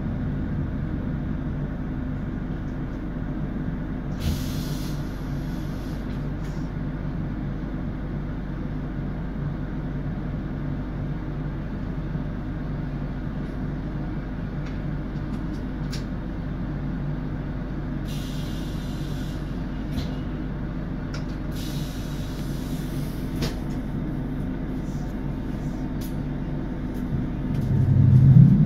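ABB UBp electric train humming steadily, with short hisses of compressed air about four seconds in and twice more around two-thirds of the way through. A louder low rumble builds near the end.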